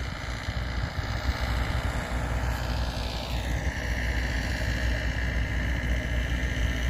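Diesel locomotive engines idling with a steady low rumble. A higher whine drops in pitch about three seconds in and then holds steady.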